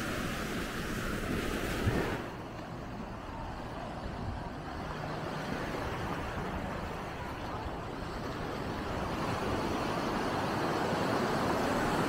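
Surf washing onto the beach, with some wind. The hiss drops away suddenly about two seconds in and builds again near the end as another wave comes in.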